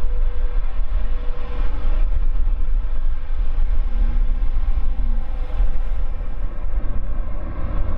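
Boeing 787-9's GEnx turbofan engines running as the jet rolls along the runway: a loud low rumble with a steady engine tone on top that fades about three seconds in.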